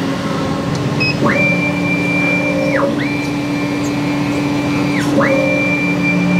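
Laser cutter's head moving along its gantry: three long motor whines, each rising in pitch, holding steady for a second or two, then falling away, over a steady machine hum.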